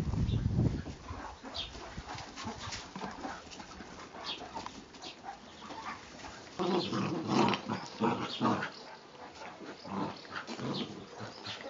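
Puppies play-fighting, with short growling and yapping sounds and scuffling, loudest in a busy stretch about seven seconds in. There is a low thump right at the start.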